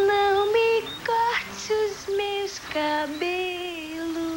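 A woman singing a melody in long, held notes.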